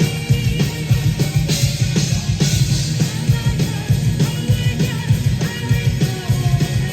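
Live symphonic metal band playing loud: dense, fast drumming with heavy distorted guitars, bass and a singer's voice, recorded from the crowd.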